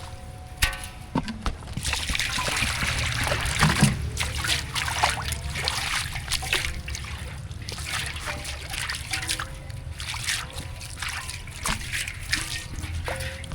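Water trickling, splashing and sloshing in a container, in irregular pours and splashes.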